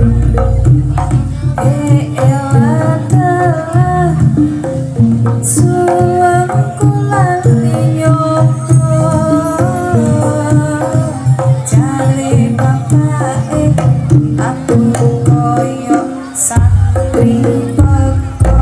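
Loud Javanese barongan accompaniment music: hand drumming with a wavering, ornamented melody line over a heavy steady bass.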